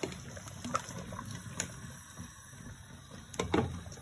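Cookware being handled on a gas stovetop: a few light clicks and knocks over a low steady background, with the loudest clatter about three and a half seconds in.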